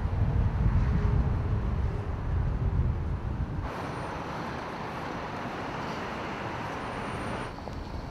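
Street ambience: a low rumble of road traffic, which switches about three and a half seconds in to a steadier, thinner hiss of distant city noise and drops quieter near the end.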